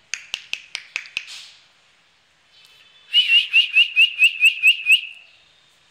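A person calling dogs with mouth sounds: a quick run of six sharp clicks, then, after a short pause, nine short rising whistle chirps in a fast, even run of about five a second.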